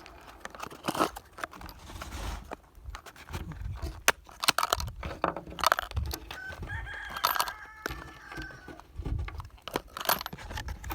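Rooster crowing: one long drawn-out call starting about six seconds in, with scattered clicks and knocks of handling around it.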